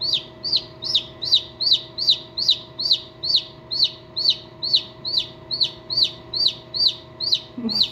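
A newly hatched chick peeping steadily inside an incubator: a regular string of high, short peeps, each falling in pitch, about two and a half a second.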